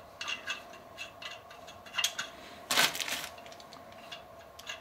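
Metal hand tools clinking: wrenches and a bolt knocking together in the hands, a string of light metal ticks and taps. About three seconds in comes one longer, louder scraping noise.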